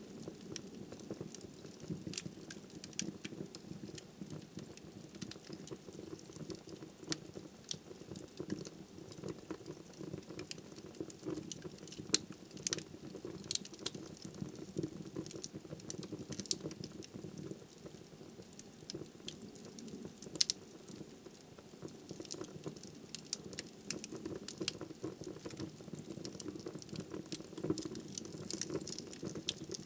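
Wood fire crackling in a fireplace: a dense run of small snaps and clicks over a steady low rush, with two louder pops, one about twelve seconds in and one about twenty seconds in.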